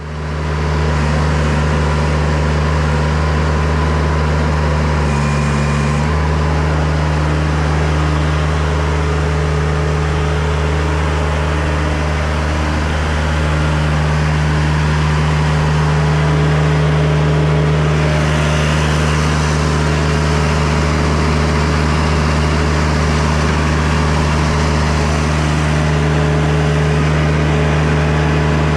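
Chinese mini excavator's Kubota diesel engine running loud and steady, with a brief change in note about five seconds in.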